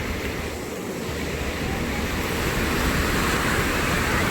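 Ocean surf washing in, swelling steadily louder, with wind rumbling on the microphone.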